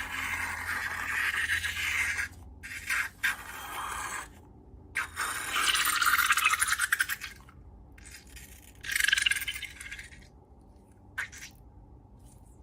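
Slime being squeezed and stretched by hand, in several crackly squishing bursts of a second or two each, with a single sharp click near the end.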